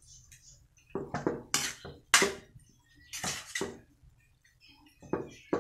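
Metal spatula scraping against a wok while stir-frying mung bean sprouts and sweet potato: a series of irregular scrapes and clinks, the loudest a little after two seconds in.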